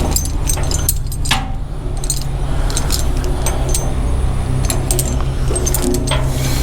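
A loader's engine running steadily, with the metal links of a lifting chain clinking and rattling against each other and against metal in short irregular clicks.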